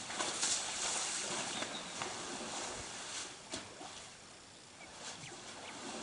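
An African elephant moving about in a shallow mud wallow: scattered wet splashes and soft thuds over a steady outdoor hiss.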